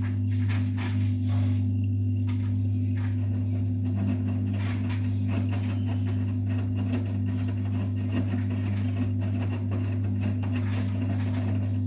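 Vestel washing machine running on its hot cotton wash, a steady low hum with many small irregular clicks and knocks over it.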